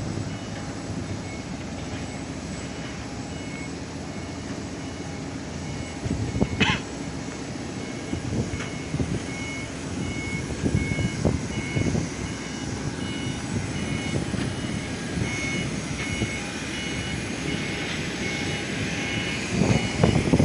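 Steady rumble of machinery on an airport apron, with a faint two-tone electronic beep repeating about once a second, the kind given by a ground vehicle's reversing alarm.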